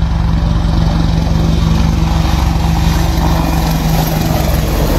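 AH-64 Apache attack helicopter in flight: steady, loud rotor and engine noise.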